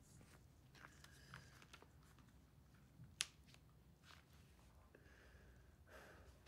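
Near silence: faint rustles and small handling noises as a person shifts on a bed and fiddles with something in his hands, with one short sharp click about three seconds in.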